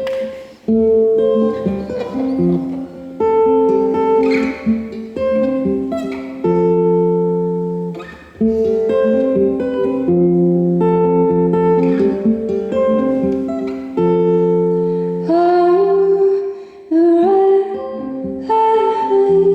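Acoustic guitar playing the song's intro, strumming chords that ring out between strokes.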